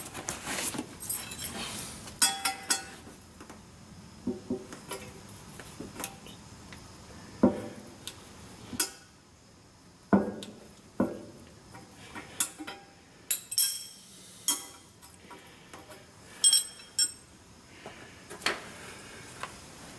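Irregular sharp metallic clinks and knocks, some ringing briefly, as steel tools and parts are handled and set down on a steel welding bench.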